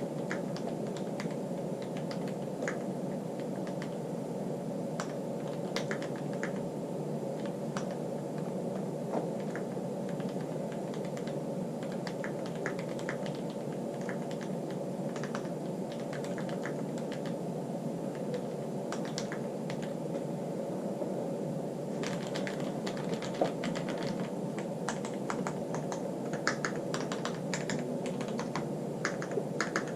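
Typing on a Keychron Q6 mechanical keyboard with Gateron Brown Pro tactile switches: a continuous run of keystroke clacks, busier and louder from about two-thirds of the way in, over a steady low hum.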